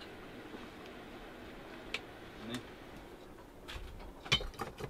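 Faint background hum, then a few light clicks and clinks near the end as lidded glass canning jars are set into a wooden cupboard among other jars.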